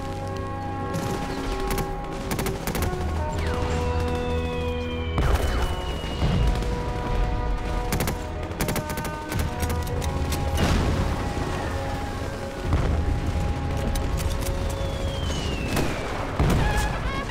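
Film battle soundtrack: background music under rifle and machine-gun fire and heavy booms, with two falling whistles. Near the end a bugle starts sounding a call.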